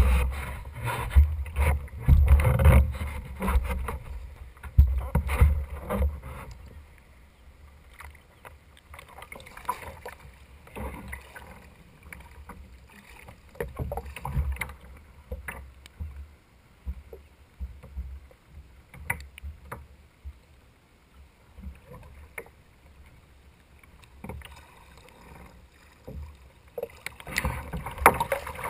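Water splashing and sloshing as a Greenland paddle sculls at the surface beside a sea kayak and the boat is lowered onto its side into a balance brace and brought back up. The sound is heavier in the first several seconds and again near the end, with quieter irregular lapping in between.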